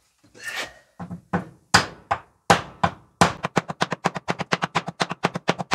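A hammer strikes a wooden wall where a hole saw has cut a circle that the blade could not get all the way through, knocking at the plug to free it. The blows start a few at a time and then, about three seconds in, turn into a quick run of about six a second.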